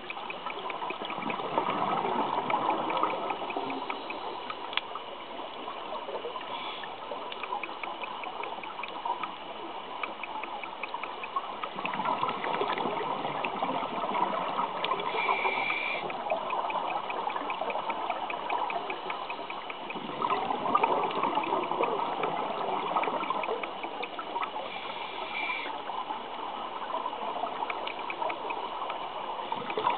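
Scuba regulator exhaust bubbles heard underwater: four bubbling rushes about eight to ten seconds apart as the diver breathes out, with quieter stretches between them. A faint, fast ticking runs underneath.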